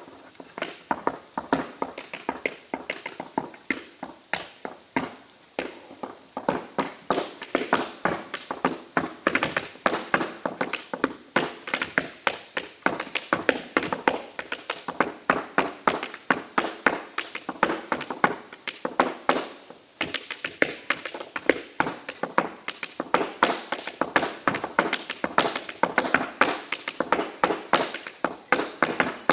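Tap shoes striking a hard surface in fast, improvised rhythmic footwork, many sharp taps a second, with a brief pause about twenty seconds in.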